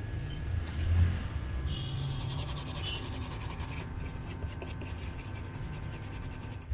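Rapid, scratchy rubbing or scraping strokes starting about two seconds in, over a steady low hum.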